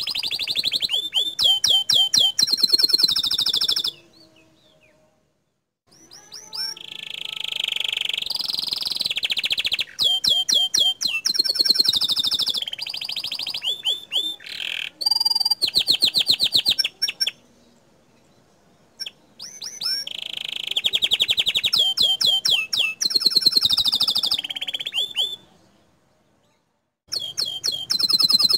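Domestic canary singing long phrases of rapid, high trills and repeated notes, its fast-fire 'tembakan' song, with two short pauses.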